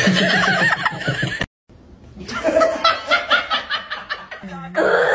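People laughing in short, rhythmic bursts, broken by a moment of silence about a second and a half in.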